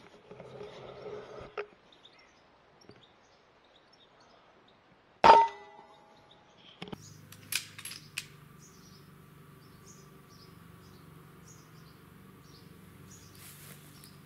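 A single shot from a Daystate Delta Wolf air rifle firing a .177 pellet about five seconds in: one sharp report with a brief metallic ring. A few sharp clicks follow a couple of seconds later, over faint bird chirps.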